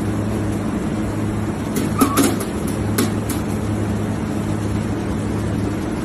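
Steady mechanical hum with a low drone, and a few sharp clicks about two and three seconds in.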